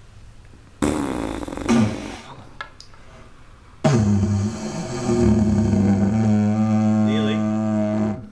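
A didgeridoo played by a beginner: a short breathy blast about a second in, then a few seconds later a loud, steady, low drone with rich overtones that holds and then stops abruptly at the end.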